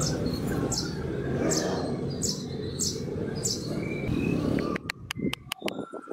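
Wooden hammer handle being worked by hand into the eye of a polished steel hammer head: a rough, continuous rubbing and scraping. About five seconds in it gives way to a quick run of light, sharp taps.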